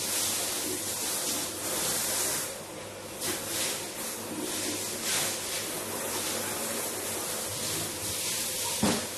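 Running water hissing steadily in a tiled bathroom, swelling and easing in waves, with a single knock near the end.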